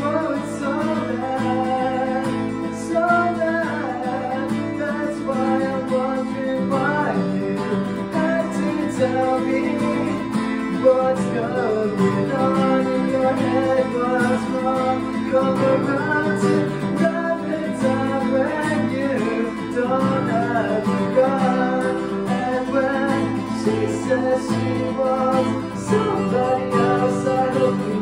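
Acoustic guitar strummed steadily, with a man singing along: a solo acoustic rock cover.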